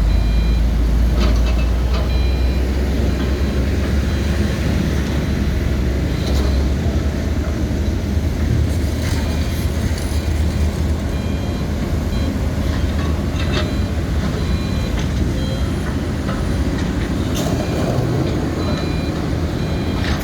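Excavator's diesel engine running steadily under load, with several sharp clanks of the bucket striking concrete and short high beeps of its warning alarm now and then.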